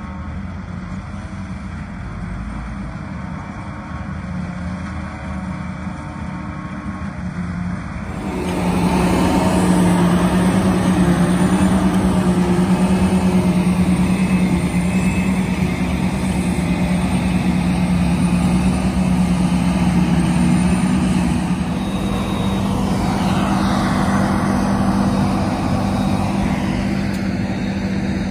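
Diesel engines of a John Deere self-propelled forage harvester and its silage trucks running while chopping, a steady drone that jumps louder about eight seconds in.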